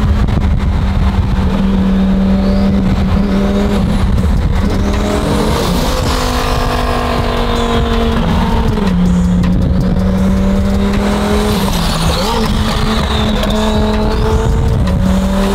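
Twin-turbocharged Lamborghini Huracán STO V10 running on race fuel. Its engine note holds steady and then steps to a new pitch every few seconds, with a faint high whistle rising and falling a few times.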